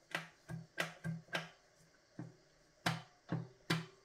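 About nine sharp metallic clicks and knocks at uneven intervals as a hand tool and loose parts are worked on the output shaft of a 904 automatic transmission.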